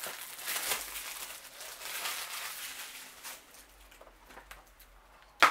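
Plastic shrink-wrap crinkling and tearing as it is pulled off a Blu-ray case, dying away after about three seconds. A single sharp click comes near the end.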